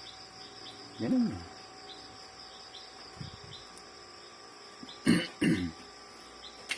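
Crickets chirping steadily in the background, with a man coughing twice in quick succession about five seconds in.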